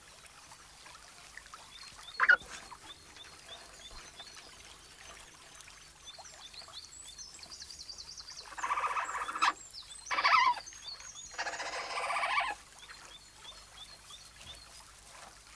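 Newborn European otter cubs giving thin, high peeps, with three louder squealing calls about eight to twelve seconds in.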